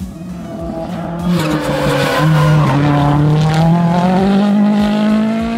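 RX3 rallycross car's turbocharged engine accelerating hard as the car approaches and takes a corner. The engine note climbs steadily, dipping briefly twice at gear changes, and is loudest in the middle.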